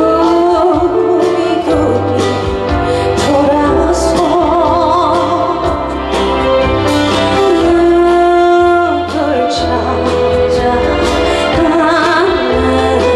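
Live pop ballad: female solo voice singing long held notes with vibrato over amplified backing music with bass and drums.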